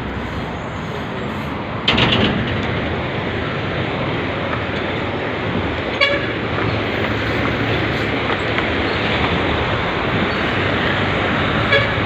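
Busy road traffic running steadily below, growing louder about two seconds in, with short vehicle horn toots about six seconds in and again near the end.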